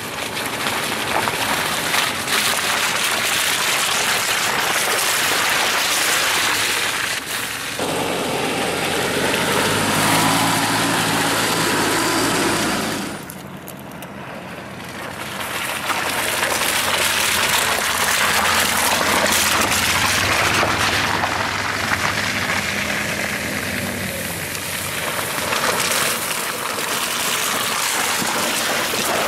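Off-road 4x4 SUV engines labouring up a rocky mountain track, under a heavy hiss of tyres, gravel and wind. The sound changes abruptly twice, with a quieter stretch about halfway through.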